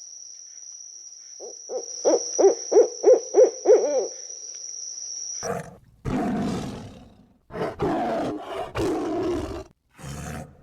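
Wild animal calls: a run of about seven evenly spaced low hoots over a steady high-pitched whine, then loud, rough, noisy calls in several bouts in the second half.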